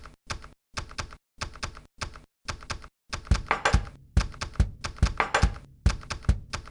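Marker-drawing sound effect: short bursts of rapid scratchy clicks, about two bursts a second with brief silent gaps. About three seconds in the clicking becomes continuous, with heavier low thumps mixed in.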